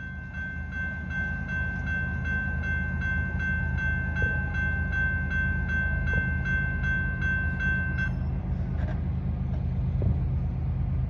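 Railroad crossing bell ringing steadily at about three strikes a second, cutting off about eight seconds in. Under it is the low rumble of a Canadian Pacific freight train coming through, which grows over the first couple of seconds.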